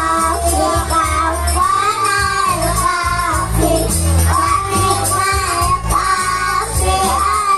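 A child singing a devotional song over a hadrah ensemble of frame drums, with a deep bass drum keeping a steady beat.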